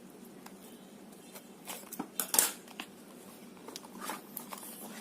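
Cardboard phone box being opened and its contents handled by hand: scattered light clicks and paper-and-cardboard rustles, the loudest a sharp rustle a little over two seconds in.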